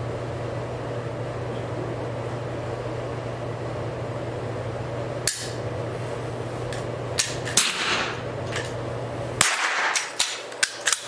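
Ruger Precision Rimfire .22 LR bolt-action rifle being fired and its bolt worked. A single sharp crack comes about halfway through, then clusters of clicks and clacks over the last few seconds, over a steady low hum.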